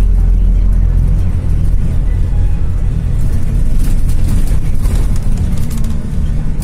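Karosa C934E bus heard from inside the cabin while driving: the diesel engine's steady low drone with road noise, and a few short rattles about four to five seconds in.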